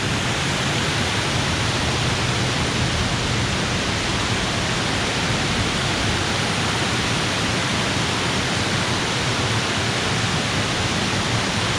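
Steady rush of creek water churning white, an even hiss with no breaks.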